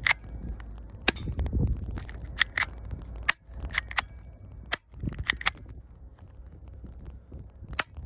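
Academy Colt 25 airsoft pocket pistol being shot and worked by hand: sharp snapping clicks of its action, several in quick pairs, about once a second, with a lone click near the end.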